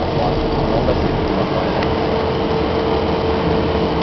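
Cabin noise of an Embraer EMB 120 Brasília twin turboprop: steady engine and propeller noise heard from inside the cabin, with one steady humming tone held throughout.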